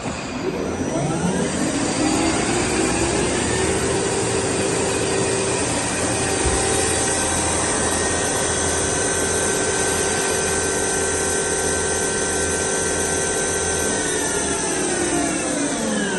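Spindle of a Sanco SHM 11025R CNC horizontal boring mill spinning up with a rising whine, running steadily at speed, then winding down near the end as it is stopped, in a speed test of the spindle.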